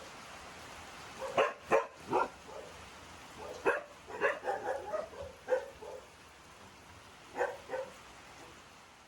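Dog barking, about a dozen short barks in irregular bunches, over a steady faint hiss.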